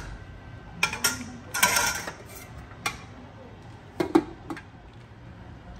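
A metal ladle clicks and scrapes against a wide metal cooking pan. About four seconds in, the metal lid is set down on the pan with a sharp clank, followed by a smaller clink.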